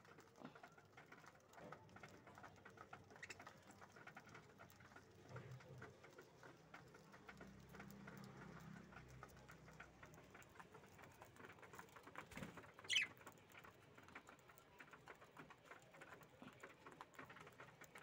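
Budgerigars pecking and cracking seed from a dish: a faint, quick patter of tiny clicks. One short high chirp stands out about two-thirds of the way through.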